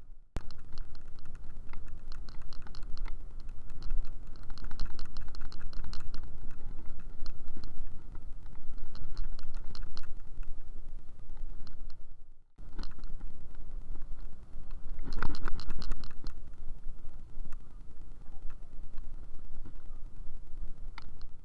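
Riding a scooter: low rumble of wind buffeting the microphone and road noise, with rapid clicking and rattling over the top. The sound cuts out abruptly twice, near the start and about halfway through.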